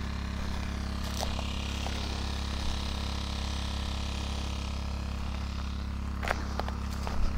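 Small petrol-engine water pump running steadily, pushing water from a tank into drip-irrigation lines. A few footsteps crunch on stony ground near the end.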